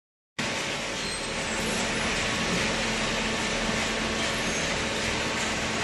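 Industrial machinery running steadily, an even mechanical noise with a faint low hum, cutting in abruptly about half a second in.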